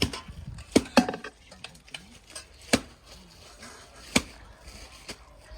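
Kitchen utensils knocking during cooking work: about five sharp, irregular knocks and clicks. The loudest come near the start and about a second in.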